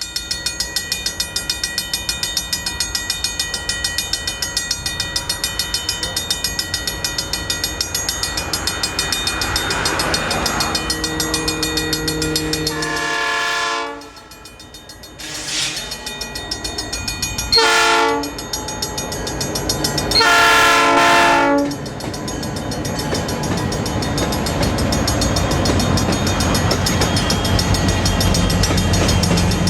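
A grade-crossing warning bell rings steadily in rapid strokes as a diesel freight train approaches. The locomotive's multi-note air horn sounds the long, long, short, long crossing signal about halfway through. Then the train rumbles past, its wheels clicking over the rail joints.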